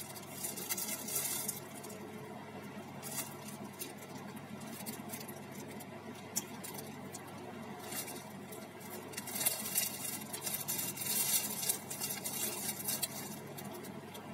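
Plastic bag and paper wrapper crinkling as a bread roll is handled in them, in several short bursts, with the longest stretch from about nine to thirteen seconds in.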